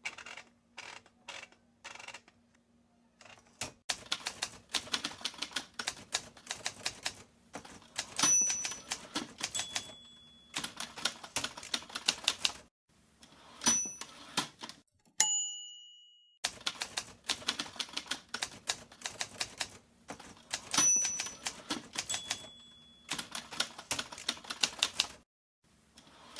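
Manual typewriter typing: quick runs of key strikes with short pauses between. The line-end bell dings loudly once about fifteen seconds in, with a few fainter rings elsewhere, and a faint low hum runs underneath.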